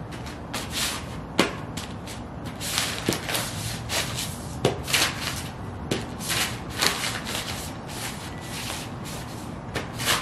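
Ugg sheepskin boots stomping and shuffling on a pile of torn glossy magazine pages over concrete: the paper crinkles and rustles under each irregular step, with sharp crackles and soft thuds.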